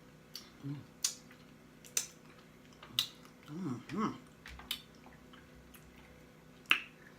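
Close-up mouth eating sounds: sharp, wet lip smacks roughly once a second, with two short rising-and-falling "mm" hums of enjoyment a little past the middle.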